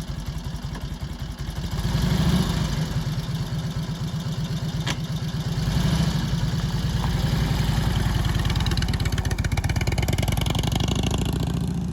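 1941 Indian Chief's flathead V-twin engine running with steady low firing pulses, blipped up about two seconds in and again around six seconds, then held at a raised speed.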